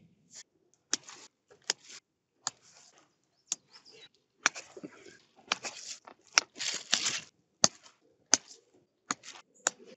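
Reflective foil sheets crinkling and crackling under a person kneeling and shifting on them. Sharp crackles come about once a second, with longer rustling from about four to seven seconds in.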